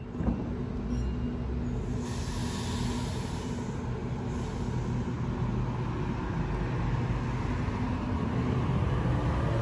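Waratah electric suburban train pulling away from the platform: a steady low hum from the train, with a hiss of air about two seconds in that stops after about two seconds, and the traction motors starting a rising whine near the end as the train gathers speed.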